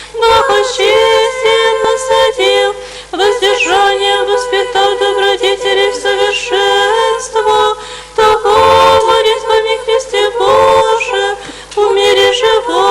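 Orthodox church choir singing liturgical chant a cappella, several voices holding sustained notes in phrases, relayed through a radio broadcast.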